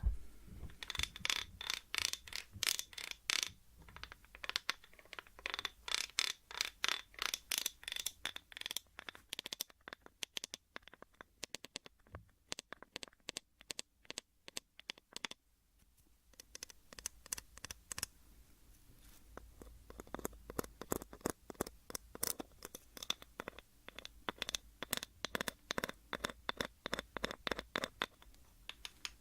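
Close-up scratching and scraping on a small object in quick strokes, several a second, thinning out for a few seconds midway before picking up again.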